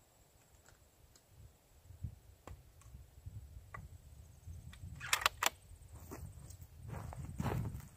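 Faint metallic clicks of a bolt-action .416 Ruger Guide Gun being loaded and worked by hand, with a quick cluster of sharp clicks about five seconds in and a longer clack near the end.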